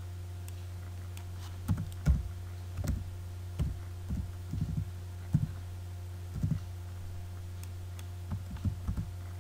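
Computer keyboard being typed on: about a dozen irregular keystrokes, starting about two seconds in, over a steady low electrical hum.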